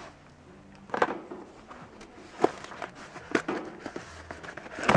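Cardboard box being cut open with a folding pocket knife and its flap pulled up: scattered short taps, scrapes and cardboard rustles.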